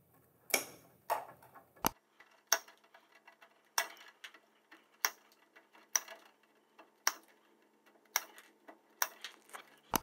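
Hand cable cutters snipping through blue Cat6 Ethernet cables one after another, a sharp snip roughly every second, about ten in all.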